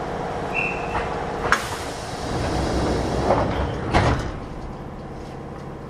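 Air-operated sliding passenger doors of a Kintetsu 8600 series train opening. A sharp hiss of air comes about a second and a half in, then the doors slide, and a thud sounds as they come to rest about four seconds in.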